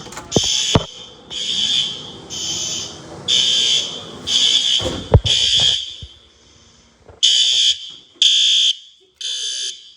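Hotel fire alarm horns sounding loud, high-pitched blasts about once a second, with a short pause near the middle. A thump about five seconds in.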